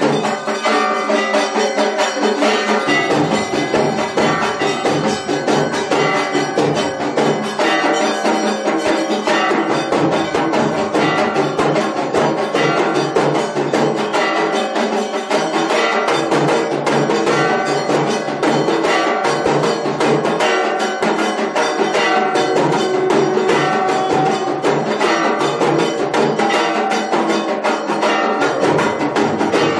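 Temple aarti percussion: bells and drums struck in a fast, unbroken rhythm.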